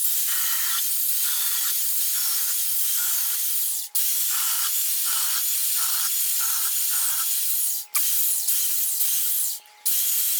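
A steady, loud hiss, broken by a few sudden brief cut-offs.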